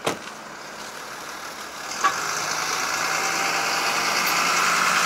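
A single sharp bang at the start, then a diesel truck engine running and growing steadily louder from about two seconds in.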